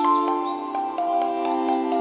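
Background music: held chords under quick, high, falling chime-like notes and light ticks.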